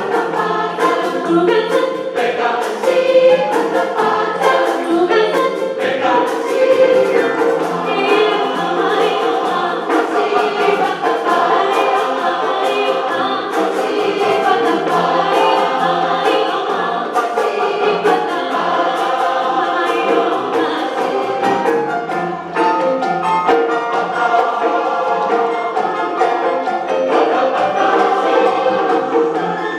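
A large choir of more than sixty voices singing an African-style song, with percussion striking a steady beat underneath.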